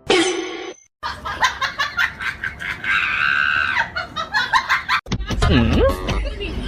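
People laughing in quick repeated bursts, with a brief high squeal in the middle. About five seconds in, the sound switches abruptly to a low rumble with a gliding voice-like sound over it.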